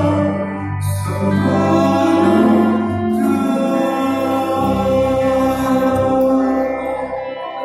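Worship group playing a Christian worship song: held chords over a bass line, with singing.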